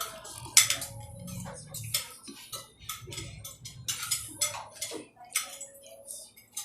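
Cutlery clinking and scraping against plates during a meal: a run of sharp, irregular clicks.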